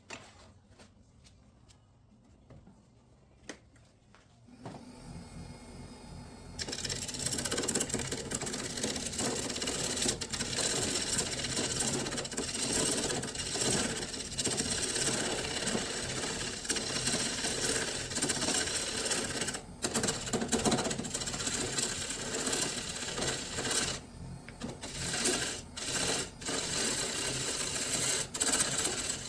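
Wood lathe work: a cutting tool running against the spinning workpiece with a dense, rapid clattering that swells in about five seconds in and turns loud a couple of seconds later, breaking off briefly twice in the second half.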